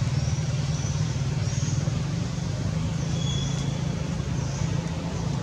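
Steady low hum of a running motor vehicle engine, with short high chirps repeating faintly above it.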